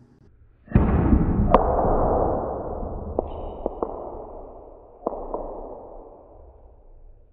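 Break shot on a pool table: a loud crack under a second in as the cue ball smashes into the racked balls, then the balls rolling across the cloth with a rumble that fades over several seconds, broken by a few sharp clacks of balls striking one another.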